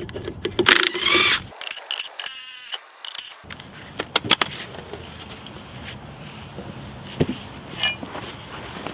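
Irregular knocks, clinks and scrapes of hand work with a jack and wheels on an old Volkswagen Beetle frozen into ice, with a few short squeaks.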